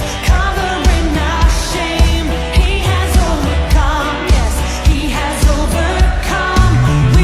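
Background pop song with a woman's or man's sung melody over a steady beat.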